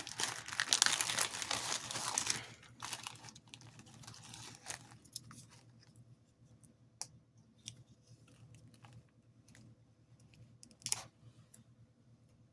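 Plastic packaging crinkling as small kit parts and light wires are handled. Loud for the first couple of seconds, then quieter scattered clicks and taps, with one sharper tap near the end.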